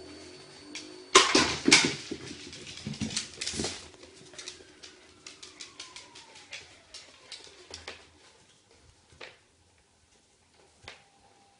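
Dachshund playing with an iFetch automatic ball launcher on a wooden floor: a few loud knocks about a second in as the ball is shot out and bounces. These are followed by light clicking and tapping of the dog's claws and the ball on the floor, which thins out and fades toward the end.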